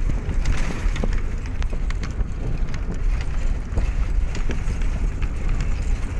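A moving bus heard from inside at an open window: steady engine and tyre rumble over the concrete, with frequent small rattles and knocks from the bodywork and window bars, and wind buffeting the microphone.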